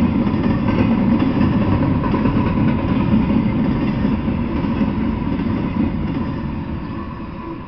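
Freight train of container cars rolling past on the rails, a steady rumble that fades away near the end as the last cars go by.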